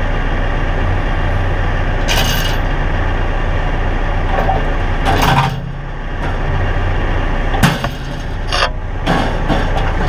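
Bobcat E42 mini excavator's diesel engine running steadily under load as its bucket pulls on a bent steel food plot drag. Several sharp creaks and cracks of the drag's metal straining and bending, the loudest about seven and a half seconds in.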